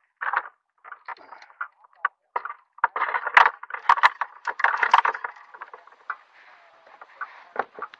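Knocks, clicks and rattles of gear being handled aboard a plastic fishing kayak, coming in a dense flurry from about three to five seconds in.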